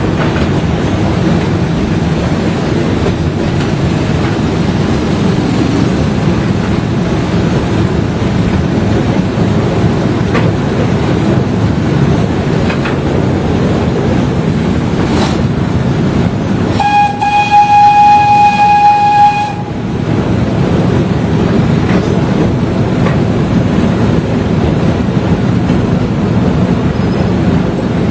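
Zoo park train running steadily, heard from aboard: a continuous rumble with occasional track clicks. About two-thirds of the way in, the train's horn sounds once, a single steady tone held for about two and a half seconds.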